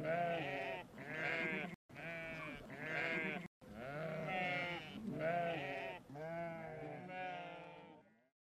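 Sheep bleating over and over, about one bleat a second, each call short with a wavering pitch, fading out near the end.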